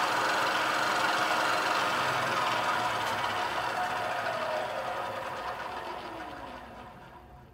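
Cincinnati milling machine's vertical spindle, driven by a 3-phase 5 HP motor, running in low gear with a steady whine. From about four seconds in it spins down: the whine falls in pitch and fades away toward the end.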